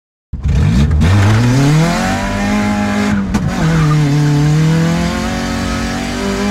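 Honda Civic engine pulling hard under acceleration: the revs climb, drop sharply about three seconds in as if on a gear change, then climb again near the end.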